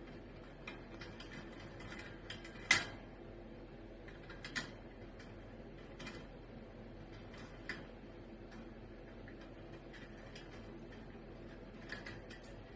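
Scattered light clicks and taps from a pet green parrot's beak, irregular rather than rhythmic, with the sharpest click a little under three seconds in and another near five seconds.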